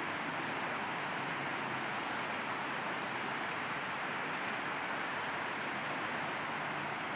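Steady rushing background noise, even in level, with no distinct events.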